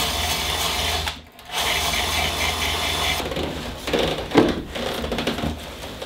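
Drill fitted with a wire brush, scouring rust off the steel van floor, stopping briefly about a second in, running again and stopping at about three seconds. A few rubbing strokes of a cloth wiping the floor follow.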